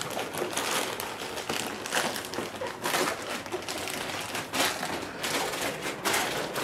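Packaging crinkling and rustling in irregular crackles as a parcel is unwrapped.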